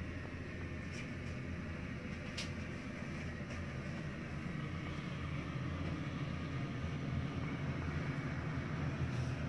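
Steady low rumble of a cruise ship's engines and machinery while under way, heard inside a cabin, with a few faint ticks in the first few seconds.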